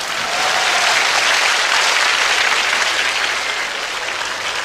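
Live audience applauding, a dense steady clatter of many hands clapping that eases off a little in the last second or so.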